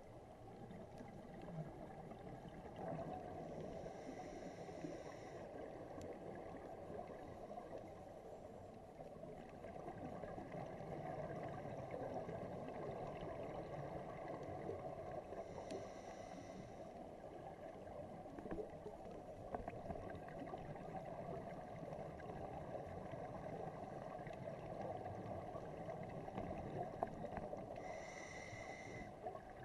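Underwater sound of a scuba dive: a steady low rush and gurgle of water. A diver's regulator gives a short hiss about every twelve seconds, three times in all.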